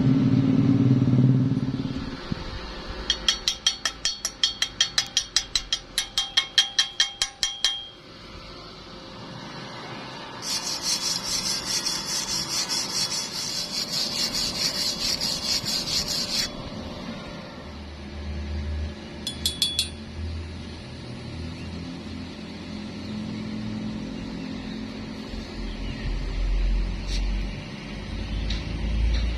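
Metalworking sounds: a quick run of about twenty sharp metal taps over five seconds, then about six seconds of steady high hissing crackle from a stick-welding arc, with a low rumble at the start and end.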